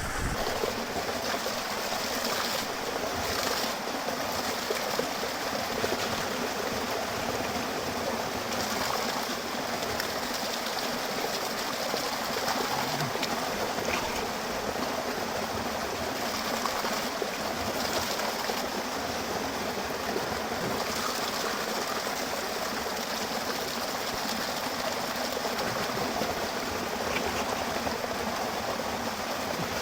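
Small waterfall pouring steadily, a constant rush of falling water.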